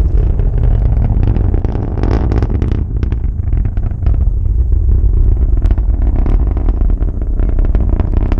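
Falcon 9 rocket engines heard through fog: a steady low rumble with constant crackling.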